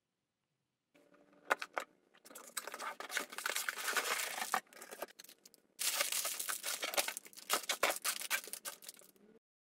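A few sharp clicks as the cardboard box is opened, then plastic bags of Lego pieces crinkling and rustling as they are pulled out and spread on a table, in two spells with a short pause between.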